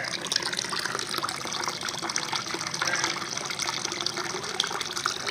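Steady rush and churn of pond water, dotted with many small splashes, from a dense crowd of red tilapia at the surface.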